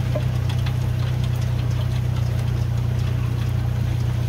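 A steady low rumble at an even level, with faint scattered ticks above it.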